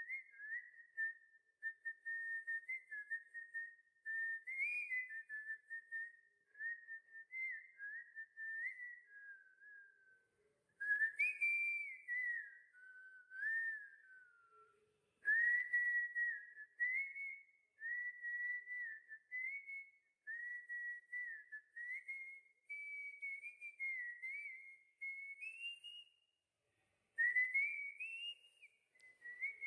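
A person whistling a melody, one clear tone in phrases that step up and down, with short pauses between phrases and a longer break near the end.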